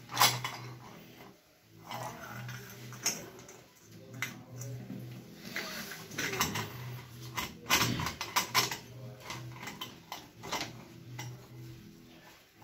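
Pipe wrench clinking and scraping on a chrome wall-mixer leg as the leg is unscrewed from the wall fitting. The metal clicks and knocks come irregularly: a sharp one right at the start and a quick cluster about eight seconds in.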